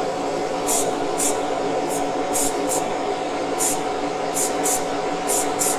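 Aerosol spray paint can hissing in short bursts, about ten quick squirts, as blue paint is sprayed onto a diecast car body, over a steady motor hum.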